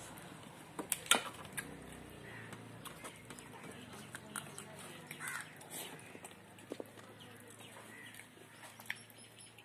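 Close mouth sounds of eating rice and curry by hand: scattered wet smacks and sharp clicks of chewing and lips, the loudest about a second in.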